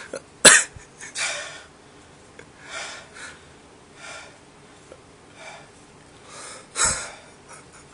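A man breathing hard and gasping after chugging water to cure his hiccups, with heavy breaths about every second. There is a sharp, sudden sound about half a second in and a louder gasp near the end.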